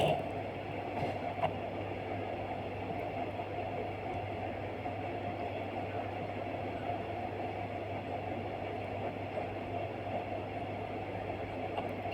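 Steady low mechanical hum with an even whir over it, unchanging, and one faint click about a second and a half in.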